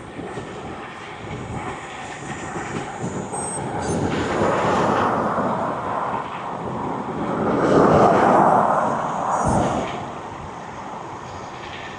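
Road noise heard from a moving bicycle, with two vehicles passing: the sound swells to a peak about four to five seconds in, and again, louder, around eight seconds in, then falls back.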